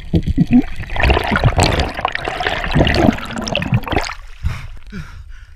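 Water rushing and bubbling over an underwater camera, with a few low knocks at first. It swells into a loud, dense rush about a second in and dies away near the end.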